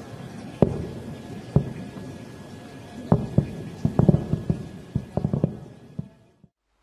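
Distant explosions and anti-aircraft fire: about a dozen sharp booms at irregular intervals over a steady background rumble, coming thickest a little past the middle. The sound cuts off suddenly near the end.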